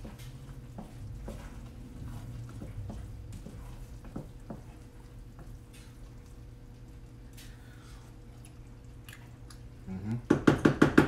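Faint clinks of a spoon in a stainless pot of risotto over a low steady hum. Near the end, a quick run of loud, ringing knocks, about nine a second.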